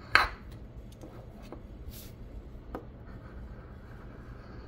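A large coin scraping the coating off a scratch-off lottery ticket. There is one sharp, loud scrape right at the start, then a few lighter scratches and ticks, over the steady hum of an air conditioner.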